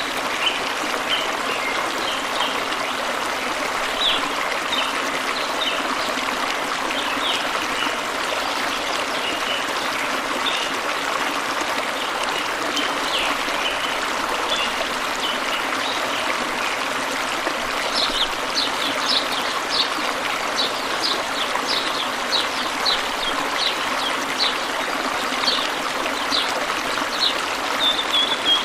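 Steady flowing water of a calm river, a constant rush with trickling. Short high chirps, most likely small birds, sound over it throughout and come more often in the second half.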